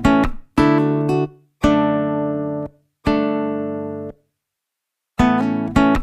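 Background music: guitar chords struck one at a time and left to ring out, with short silences between them and a longer pause of about a second near the end.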